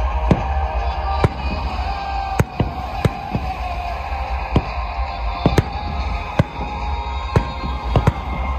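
Aerial fireworks going off, about a dozen sharp bangs at uneven intervals, over steady music.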